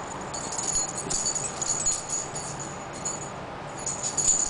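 Metal tags on a dachshund's collar jingling as the dog moves about, in quick irregular clinks.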